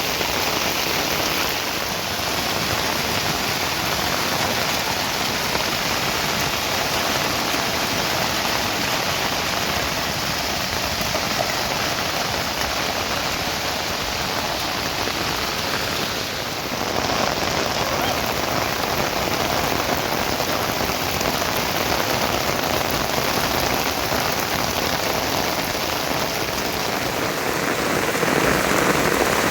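Steady rain falling, a dense even patter of raindrops with a brief dip in level about halfway.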